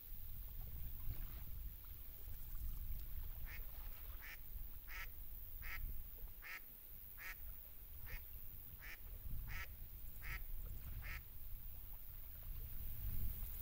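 A duck quacking in an even series of about eleven quacks, a little faster than one a second, starting a few seconds in and stopping near the end.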